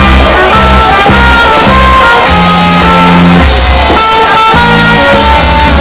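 Loud band music with electric guitar, bass and drums playing steadily.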